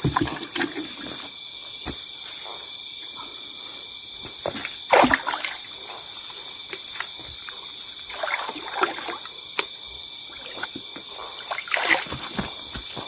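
Small irregular water splashes and trickling, with a few sharper clicks, from fish being rinsed and cleaned at the water's edge, over a steady high-pitched chorus of night insects.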